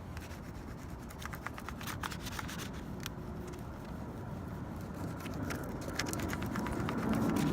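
Crayon rubbed quickly back and forth over paper laid on a textured surface, making a run of short scratchy strokes for several seconds. A steady low rumble runs underneath and grows louder near the end.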